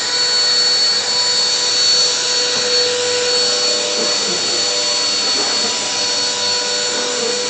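Vacuum cleaner running with a steady, high whine that holds one pitch.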